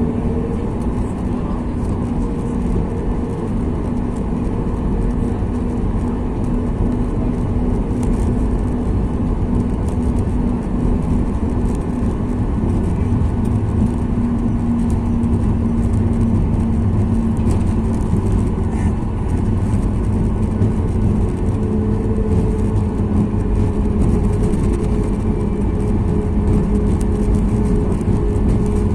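Cabin noise of a Boeing 737 MAX 8 airliner: a steady, loud rumble from its CFM LEAP-1B jet engines and airflow, with a low steady hum, getting slightly louder after a few seconds.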